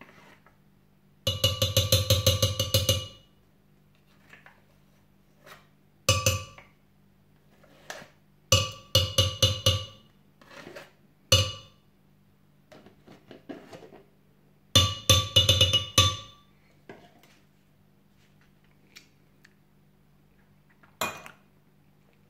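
Spoon knocking rapidly against a glass blender jug, in several bursts of quick ringing clinks with a few single clinks between, as natural yogurt is spooned into the jug.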